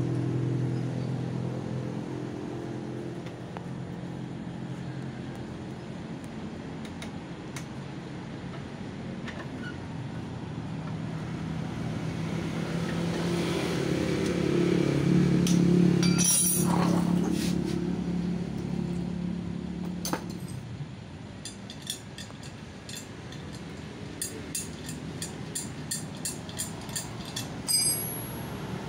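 A motorcycle engine runs steadily nearby, swelling louder in the middle and then easing off. In the later part come quick light metallic clinks, about three a second, from the wrench and axle hardware as the scooter's rear wheel is being taken off.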